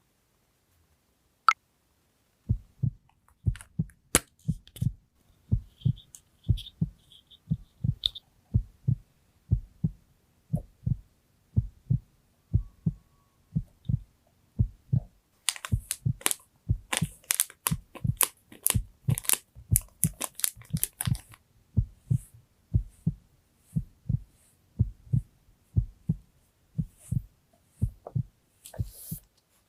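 Heartbeat, a steady rhythm of soft low thuds. From about halfway, sharp high crackling clicks run over it for several seconds.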